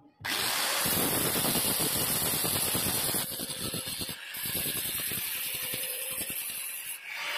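Handheld angle grinder running against a welded joint on a stainless steel handrail, grinding and polishing the weld smooth with a flap disc and a polishing wheel. It is a loud, steady grinding hiss that starts abruptly just after the start and changes in tone about three seconds in.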